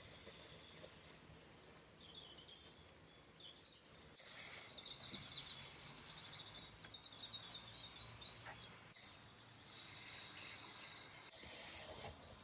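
Faint outdoor ambience with birds chirping now and then, and soft stretches of rubbing as a stain applicator pad is wiped along wooden panels.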